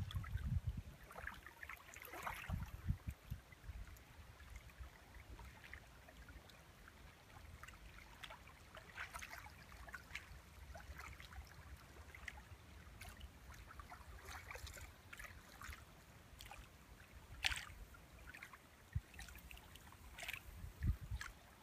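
Small wavelets lapping and trickling at a shallow sandy lake edge, in short irregular splashes. Gusts of wind rumble on the phone's microphone, most strongly in the first few seconds and again near the end.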